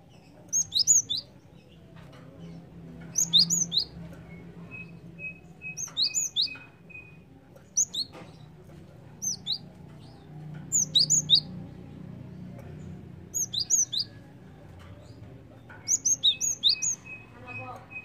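Cinereous tit (gelatik batu) singing: short phrases of two to four high, sharp whistled notes that each drop in pitch, repeated about every two to three seconds.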